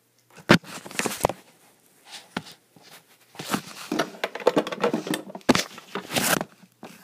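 Handling and rummaging noise close to the microphone: a few sharp knocks and clacks in the first second and a half, then a longer spell of rustling and knocking as things are moved about from about the middle on.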